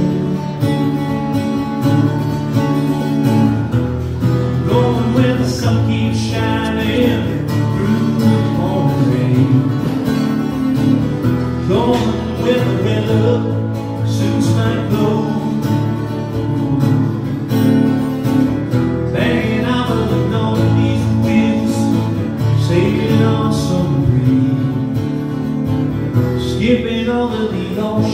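Acoustic guitar strummed live, with a solo singer's voice carrying a cover song.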